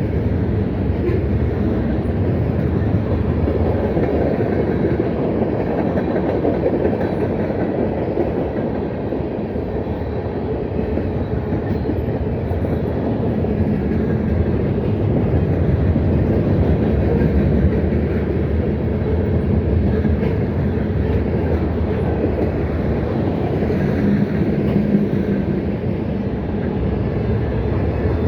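CSX freight train rolling past, a steady loud rumble of its cars' wheels on the rails.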